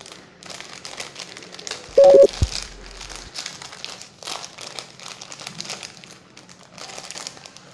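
Clear plastic sheet crinkling and cellotape being peeled slowly off it: a soft, continuous crackle of small ticks. About two seconds in a brief, loud pitched squeak-like tone cuts across it.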